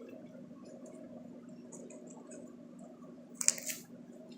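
Slime being squeezed and handled: faint wet squishing and small clicks, with one louder squelch about three and a half seconds in, over a steady low hum.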